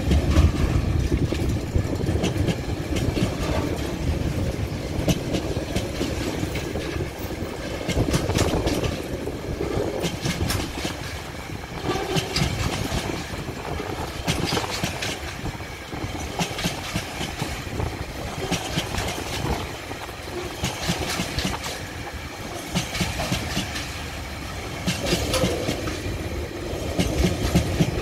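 Freight train's container wagons rolling past close by: a steady rumble with wheels clattering in repeated groups of clicks.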